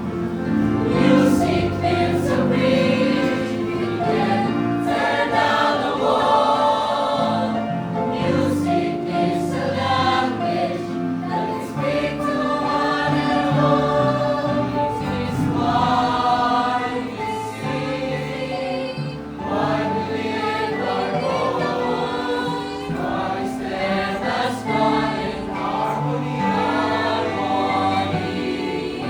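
Choir singing a slow hymn-like piece with accompaniment, the voices holding and changing chords.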